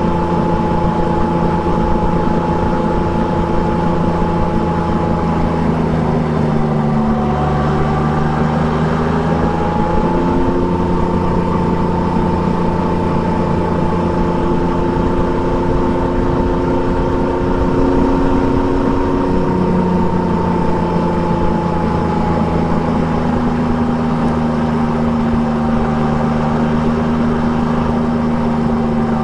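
Triumph Trident 660's inline three-cylinder engine through an Akrapovic exhaust, riding at a steady pace. About six seconds in the engine note dips and then climbs back over a few seconds, then holds fairly even.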